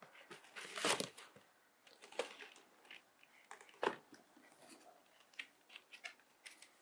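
Cardboard shoebox being handled and its lid opened: irregular knocks and scrapes of the box, the loudest about a second in and near the middle. Then light crinkling of tissue paper inside the box near the end.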